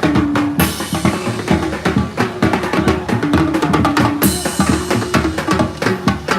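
A live full band playing an instrumental groove during a sound check, led by a busy drum kit with bass drum and snare, over held pitched notes. Cymbal crashes ring out about half a second in and again about four seconds in.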